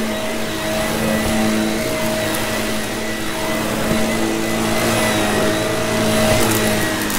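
Vacuum cleaner motor running steadily, a constant drone with a held hum.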